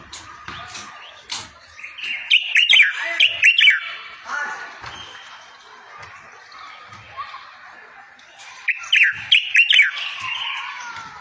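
A songbird singing in two loud bursts of rapid, sweeping high notes, about two seconds in and again near nine seconds, with softer twittering between them.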